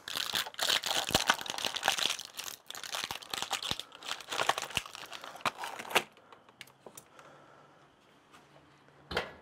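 Packaging of fire-starter lighter cubes crinkling and tearing as it is opened by hand, a dense run of crackles for about six seconds that then dies away.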